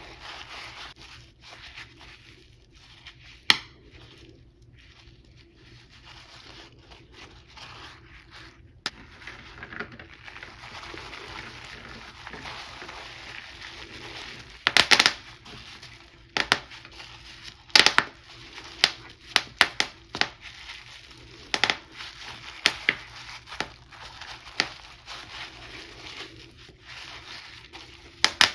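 Chalk-dusted plastic bubble wrap being handled, crinkling steadily, with sharp pops of bursting bubbles: only a few in the first half, then many in quick succession from about halfway through.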